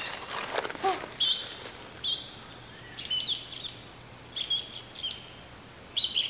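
Wild birds chirping: one short, high chirping phrase repeated about five times, roughly once a second.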